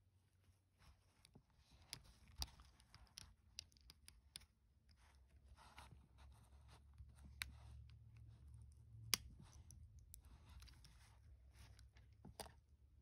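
Faint handling sounds of a semi-rimless eyeglass frame and its nylon lens string being worked by fingers: scattered small clicks and soft rustles, one sharper click about nine seconds in, over a low steady hum.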